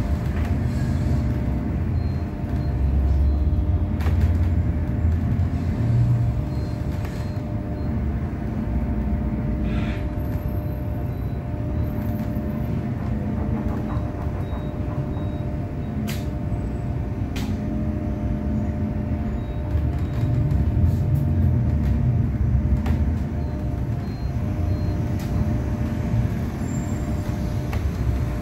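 Inside a Scania/Higer Fencer F1 battery-electric bus while it drives: steady low road and tyre rumble with a faint constant hum from the drivetrain. A few brief clicks and rattles come from the body fittings.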